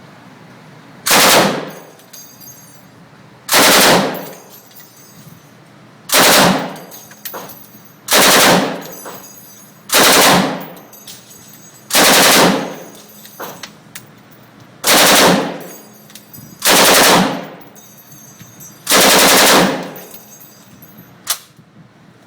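Machine gun firing nine short bursts, one every two to three seconds, each with a ringing tail, then a single sharp click near the end.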